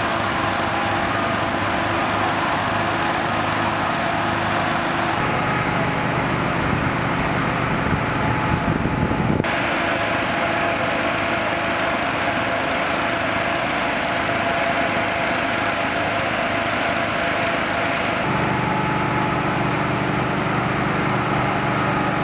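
An engine running steadily under a constant hiss. The pitch and balance of the sound change abruptly about five, nine and eighteen seconds in.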